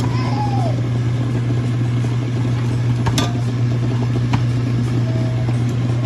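A steady low hum, like a running motor or fan, with two sharp clicks about three and four seconds in.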